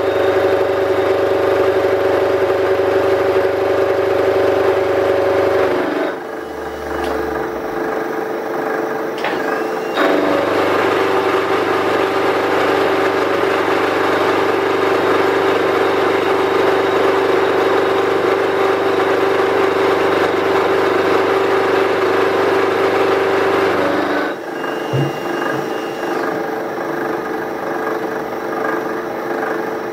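Geared milling machine running, its gears and back gears whining steadily while a half-inch corncob roughing end mill cuts the flange of a steel channel. The sound drops and changes about six seconds in, comes back at about ten seconds, and drops again about twenty-four seconds in.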